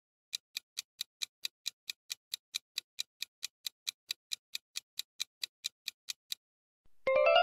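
Clock-style countdown timer sound effect ticking, about four to five ticks a second, while a quiz question's timer runs down. The ticks stop near the end and a bright chime with a quick rising run of notes rings out as time runs out.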